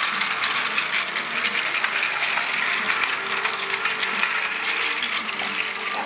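Battery-powered plastic toy trains running on plastic track: the small geared motors and wheels make a steady, dense clicking rattle.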